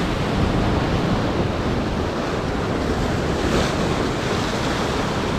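Ocean surf breaking and washing over coastal rocks: a steady rush of white water, with a strong swell running.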